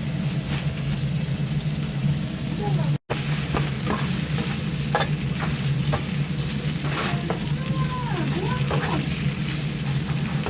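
Thin-sliced pork belly sizzling steadily in a frying pan, with scattered clicks and taps. The sound cuts out briefly about three seconds in.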